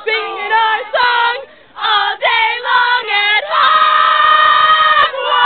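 A group of high-pitched voices chanting in unison in short syllables, then a long held cry starting about three and a half seconds in.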